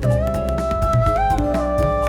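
Background music: a flute-like lead melody of held notes stepping between pitches over a steady percussion beat.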